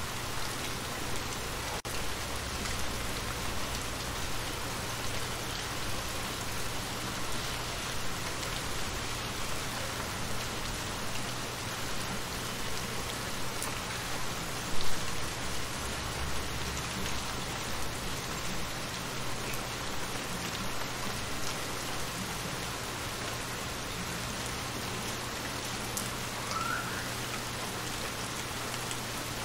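Steady rain falling into shallow water, many small drops hitting the surface at once. One brief, louder knock comes about halfway through.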